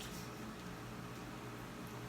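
Steady low background hiss with a constant low hum and no distinct event.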